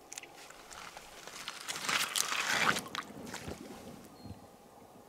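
Rubber boots crunching and squelching over wet gravel and mud into shallow river water, then splashing in the water, loudest about two to three seconds in.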